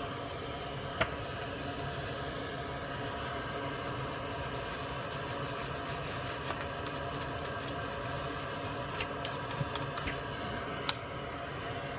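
Light rubbing and scraping with small clicks of tools on a circuit board, over a steady hum and hiss. There are two sharper clicks, one about a second in and one near the end.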